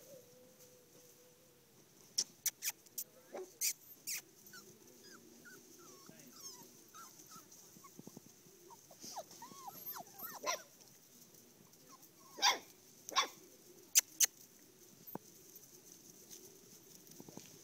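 Six-week-old puppies playing: short, sharp yips and barks in two quick clusters, with faint squeaky whines in between.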